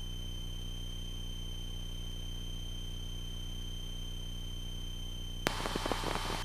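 Aircraft intercom audio in cruise: a steady low engine hum with a thin, constant high-pitched electrical whine. About five and a half seconds in, a sharp click is followed by a faint hiss as the radio opens up.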